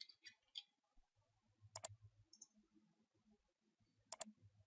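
Computer mouse double-clicks: two sharp paired clicks, about a second and a half in and again about four seconds in, over faint room tone.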